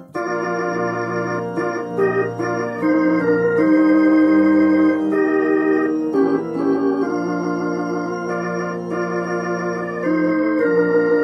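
Roland HP 704 digital piano set to an organ voice, playing a gospel hymn in held chords that sustain without fading, with a brief break right at the start.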